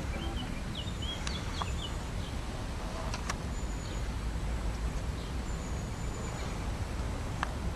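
Steady outdoor background noise by a river, with a few short bird chirps in the first two seconds and a few faint clicks.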